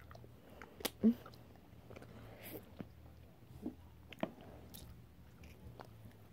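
Close-up mouth sounds of chewing soft, sticky Airheads taffy: faint wet smacks and clicks, with a brief vocal sound about a second in.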